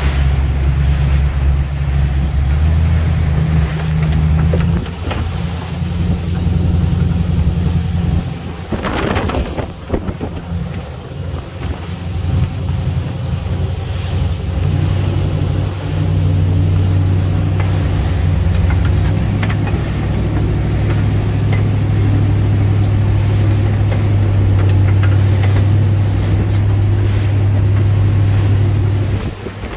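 A fishing boat's engine running steadily at cruising speed, a deep hum, with the hull and spray sloshing through choppy water and wind buffeting the microphone. About nine seconds in, a brief loud rush of noise briefly drowns the engine hum before it settles steady again.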